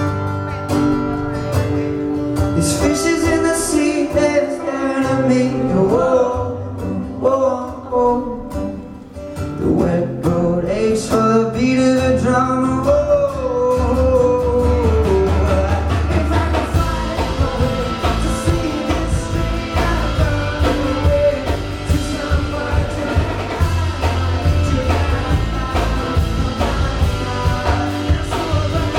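Live rock concert music: a male singer with guitar. About halfway through, a fuller band sound with a heavy low end comes in and carries on.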